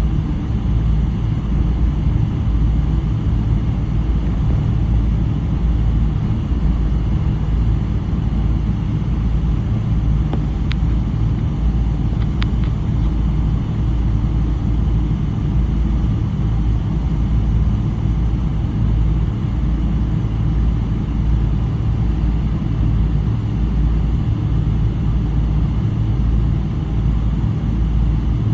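Steady low rumble of engine and airflow noise heard inside the cabin of a Boeing 777-300 with Rolls-Royce Trent 800 engines. Two faint clicks come about a second and a half apart near the middle.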